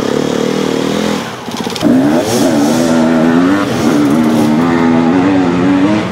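Dirt bike engine revving on a steep off-road climb. It sags briefly about a second in, then revs up sharply and keeps revving unevenly, the pitch rising and falling.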